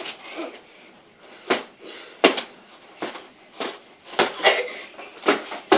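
Boxing gloves landing punches: an irregular series of sharp slaps and thuds, about eight in under six seconds.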